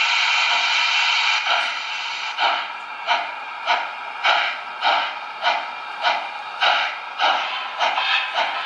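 Sound from a Märklin H0 Union Pacific 844 model steam locomotive: a steady steam hiss, then about a second and a half in, exhaust chuffs start, roughly one every 0.6 s and slowly quickening as the locomotive pulls away.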